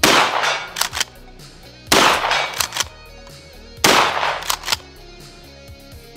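Stevens 320 Security 12-gauge pump shotgun firing 3-inch magnum slugs: three loud shots about two seconds apart. Each shot is followed by shorter sharp clacks as the pump is cycled.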